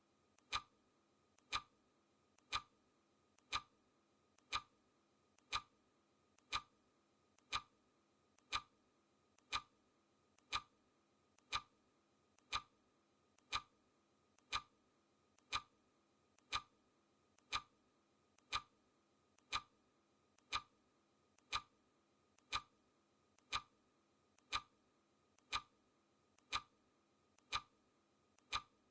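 Countdown timer's clock-tick sound effect, one sharp tick every second, each with a faint click just before it.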